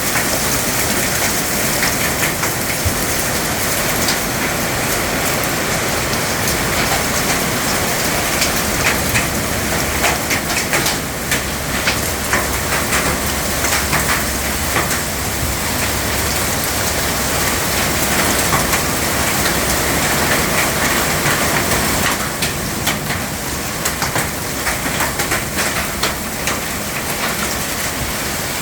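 Heavy rain and hail pelting down, with a dense patter of sharp impacts that grows thickest in the middle. A low rumble runs underneath from about six seconds in until about twenty-two.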